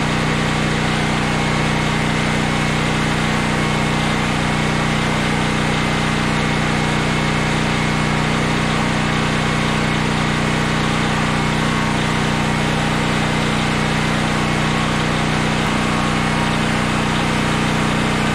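Honda EB6500X generator's single-cylinder engine running steadily under the load of a plugged-in ceramic heater, its auto throttle holding engine speed up. The hum holds one even pitch throughout.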